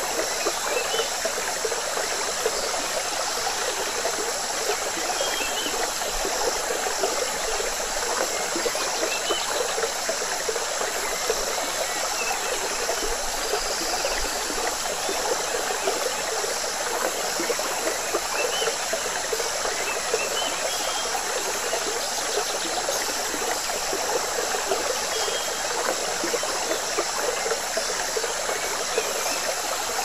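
Jungle river water flowing and trickling steadily, with a steady high hiss above it and a few faint, short chirps scattered through.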